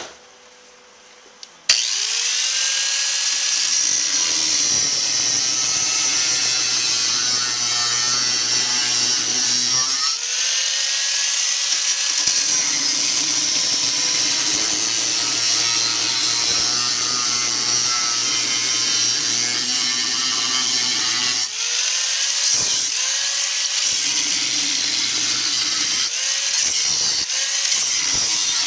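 Electric angle grinder switching on about two seconds in and running against sheet-metal car body panels, a loud steady high-pitched grinding whine. Its pitch sags and climbs back several times as the disc bites and eases off, most often near the end.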